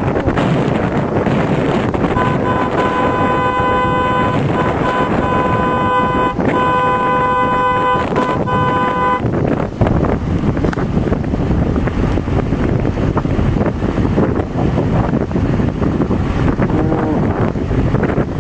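A horn tooting in a run of broken blasts from about two to nine seconds in, over a steady rush of wind noise on the microphone.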